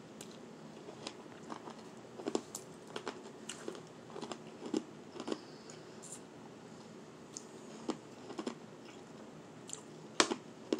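Close-up crunching and chewing of powdery shaved ice: irregular soft and sharper crackles, with the loudest crunch near the end.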